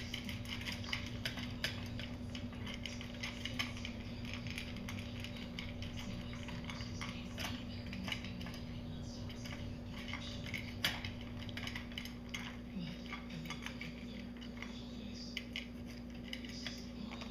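Small dog eating from a stainless steel bowl in a wire stand: irregular clicks and clinks of food and teeth against the metal, coming in quick clusters, over a faint steady hum.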